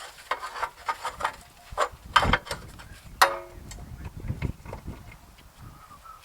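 Metal clanks and clicks of tools and a mower blade being handled and fitted onto a mower-deck spindle, with a short metallic ring a little past the middle.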